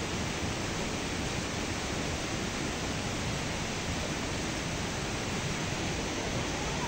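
Rushing water making a steady, even noise with no breaks.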